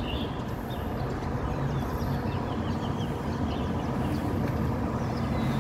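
Steady low rumble of city street traffic and running car engines, with a few faint high chirps now and then.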